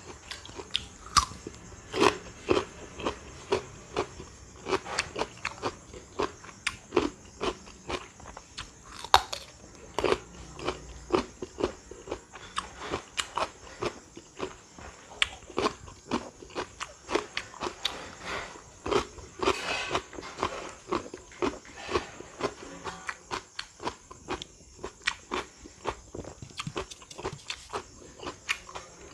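Close-up crunching and chewing of crisp raw fruit: many sharp, irregular bites and crunches, several a second, going on throughout.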